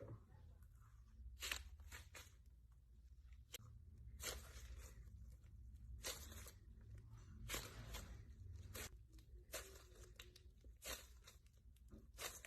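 Slime being squeezed and pulled by hand, giving short, irregular crackling and popping sounds about a second apart over a faint low hum.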